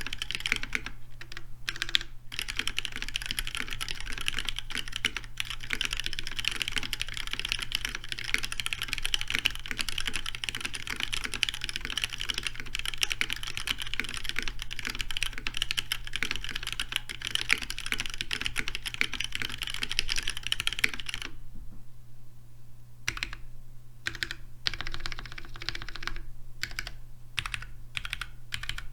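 Continuous fast typing on a custom mechanical keyboard with lubed Cherry MX Black linear switches, GMK keycaps and a brass plate. About two-thirds of the way in, the typing thins to scattered single keystrokes and short bursts separated by pauses.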